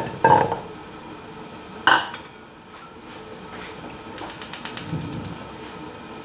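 Carrot chunks tipped from a bowl into an empty wok, landing with two loud clattering knocks about a second and a half apart. Later comes a quick run of rapid mechanical clicks lasting about a second.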